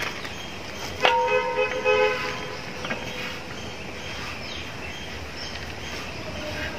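A horn sounding once, about a second in, for about a second and a half: a steady two-note tone over a constant background hiss.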